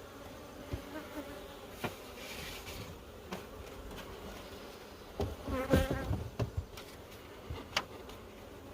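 Honeybees buzzing steadily around an open hive, with scattered knocks and scrapes, the loudest cluster about five to six and a half seconds in.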